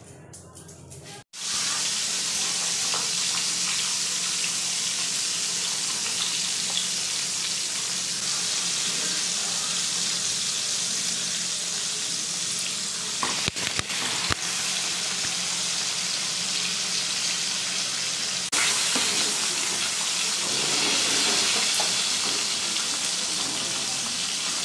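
Pieces of katla fish sizzling as they fry in hot mustard oil in a pan, a steady loud hiss that starts sharply about a second in. A few brief clicks sound about halfway through.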